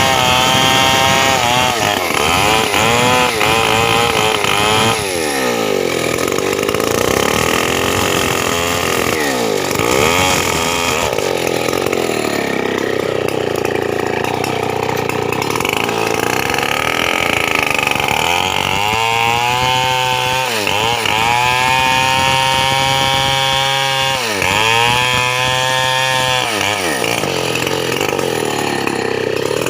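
Stihl 070 two-stroke chainsaw running hard throughout, its engine pitch dropping and climbing back again and again as the chain loads up and frees in the cut of a teak log.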